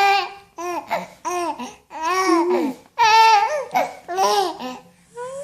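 A young infant cooing and babbling: a run of about seven short, high-pitched vocal sounds, each rising and falling in pitch.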